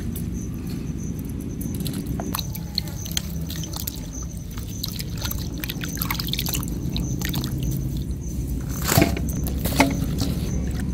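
Hands swishing and splashing kadam fruits in a plastic tub of water, with many small splashes and drips over a steady low rumble. A louder knock about nine seconds in.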